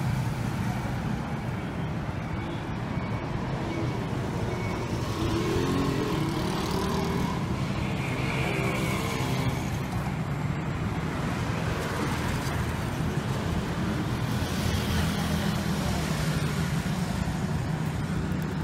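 Road traffic: motorcycles and cars passing on a city road, with a steady low engine hum.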